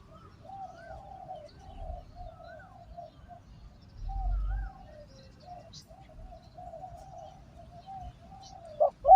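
Spotted doves cooing in an almost unbroken run of low coos, with faint chirps of other small birds. A brief low rumble about four seconds in, and a louder coo right at the end.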